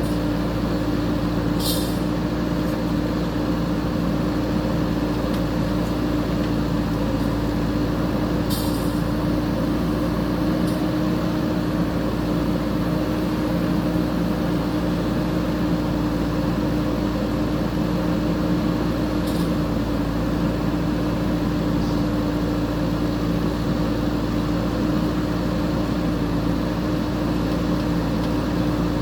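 JCB 3DX backhoe loader's diesel engine running at steady revs, with a few brief high hisses or clicks over it.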